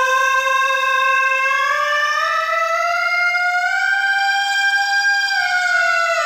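A singer's voice holding a high C5 on an open vowel, then climbing smoothly up the scale to G5, holding it, and starting back down near the end. It is one clean, unbroken tone sung in what is taught as the pharyngeal voice, with no crack or break between registers.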